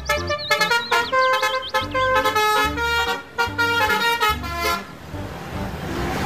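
Bus telolet horn sounding a quick tooting melody of changing notes, followed by a rushing noise about five seconds in.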